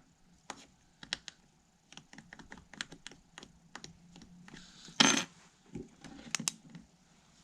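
A metal key scratching and tapping on a flip phone's camera lens glass: a run of small, sharp clicks and scrapes, with one louder, longer scrape about five seconds in.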